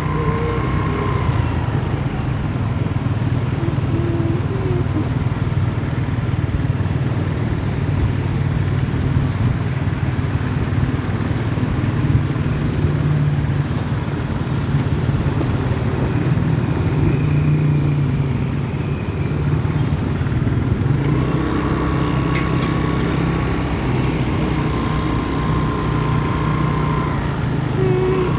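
Large bus engine running steadily with a deep drone. Faint held horn-like tones come in now and then near the end.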